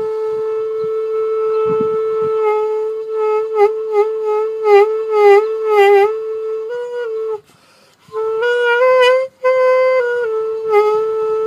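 Xaphoon pocket saxophone (single-reed mini sax) holding one steady note. From about two and a half seconds in, the pitch dips and wavers repeatedly, then steps slightly higher. The note breaks off briefly, resumes with small upward shifts, and settles back on the first pitch. The note is being bent by a microtone by flexing the instrument and moving the mouthpiece further into or out of the mouth.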